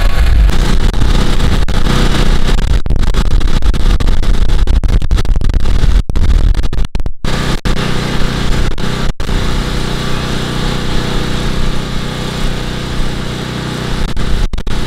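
A small engine running steadily, a continuous mechanical drone with a few brief dips in the middle.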